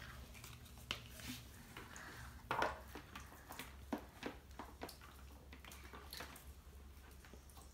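Faint handling noise from toy packaging: paper and plastic rustling with scattered small clicks. The loudest rustle comes about two and a half seconds in, and scissors are at work near the end.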